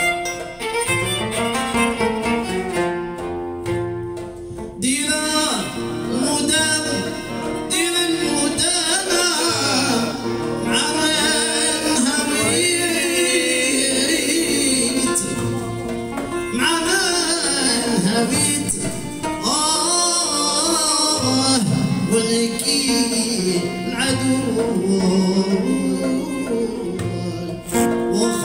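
Live Maghrebi-style band music: a violin played upright on the knee, a plucked string instrument and a hand drum, with a singer coming in about five seconds in and carrying a wavering, ornamented melody.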